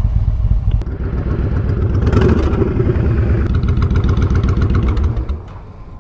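V-twin motorcycle engine idling after parking, swelling briefly about two seconds in, then shut off a little after five seconds.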